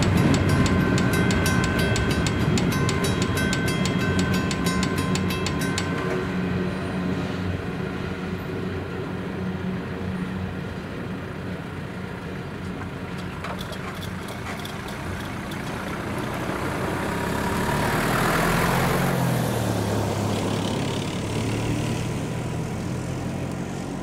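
A freight train's hopper wagons roll past over the rails while a Western Cullen Hayes mechanical level-crossing bell rings in rapid, regular strikes; both stop about six seconds in. About three-quarters of the way through, a car drives over the crossing close by.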